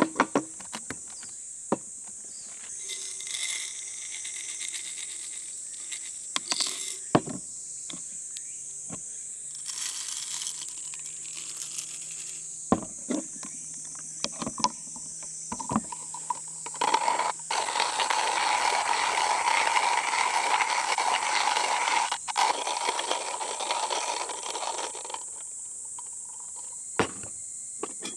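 Hand-cranked coffee grinder grinding beans: several seconds of dense, grainy crunching, preceded by a few clicks and knocks as the grinder is handled and assembled. A steady high insect drone continues underneath.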